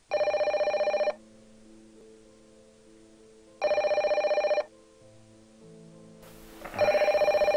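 Beige corded landline telephone ringing three times, each ring about a second long with a fast trilling flutter, roughly three seconds apart.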